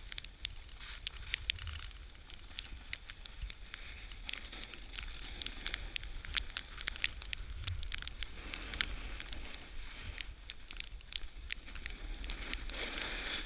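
Wind and blowing snow against a pole-held action camera's housing: dense, irregular crackling clicks over a low wind rumble, with a louder hiss swelling near the end.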